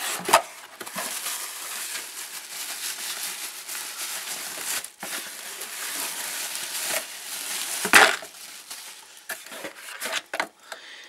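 Plastic bubble wrap rustling and crinkling as it is handled and pulled off a small metal mesh tea infuser in a cardboard box. A sharp knock comes just after the start, and a louder one about eight seconds in.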